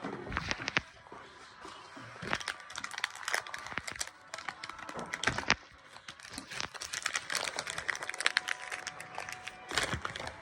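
Packaging crinkling and crackling in irregular runs as sweet wrappers are handled.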